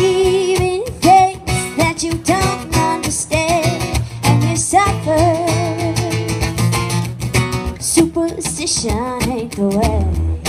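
A woman singing, holding notes with a wavering vibrato, over a strummed acoustic guitar.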